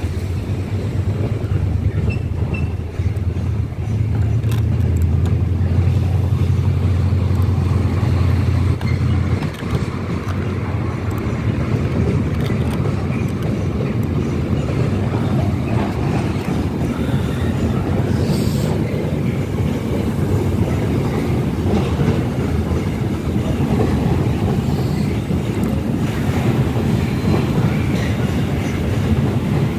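Container freight train's wagons rolling past on a viaduct, with a steady rumble of wheels on rail. A deeper low drone in the first nine seconds or so cuts off suddenly.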